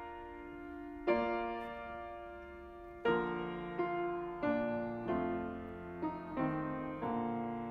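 Solo piano playing slow, gentle chords, each struck and left to ring and fade. The chords come closer together in the second half.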